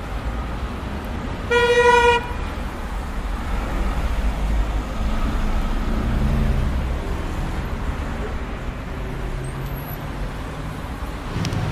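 Road traffic running steadily, with a single vehicle horn toot, about half a second long, about two seconds in.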